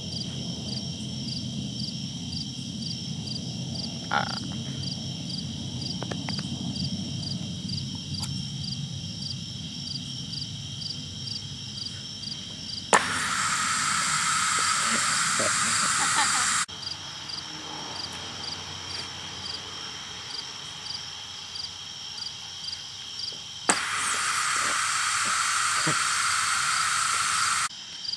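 Two blasts of compressed air from a homemade coffee-creamer dust cannon, about ten seconds apart: each opens with a sharp pop and runs as a loud hiss for about four seconds before cutting off suddenly. A steady, pulsing night chorus carries on underneath.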